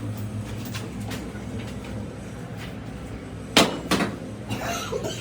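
A low steady hum that fades out about a second in, then a loud sharp knock about three and a half seconds in, a lighter knock just after, and rustling or scraping near the end.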